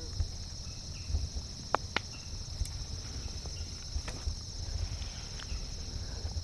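Steady chorus of insects, a high pulsing trill, over a low rumble on the microphone, with a few faint clicks.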